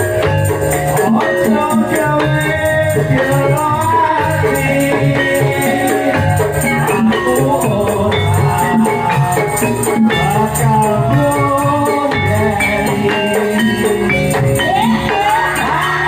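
Live band music with a woman singing over a steady, repeating beat.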